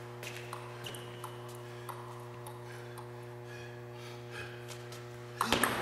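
Steady low hum of the hall with faint, irregular clicks of table tennis balls. Near the end a louder burst of noise starts.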